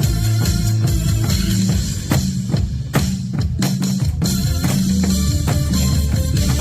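Amplified dance-beat backing music with a heavy bass line, played along on janggu drums. About two seconds in, the bass thins out and a run of sharp drum strikes fills the gap before the full beat returns.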